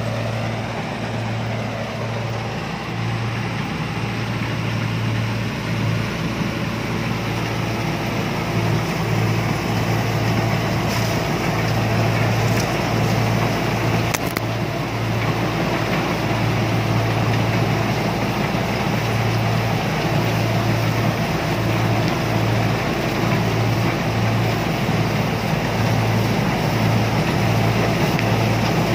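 Combine harvester running steadily, its engine giving a continuous low hum over a dense mechanical noise that grows a little louder part way through.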